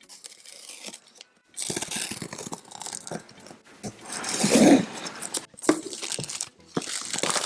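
A cardboard product box being opened by hand: tearing, crunching and rustling of the box and its packaging, with short clicks and scrapes and a louder stretch about halfway through.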